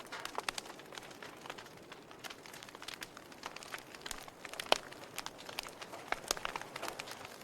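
Wood fire burning in a fireplace: burning logs crackling and popping irregularly over a soft steady hiss, with one louder pop a little under five seconds in.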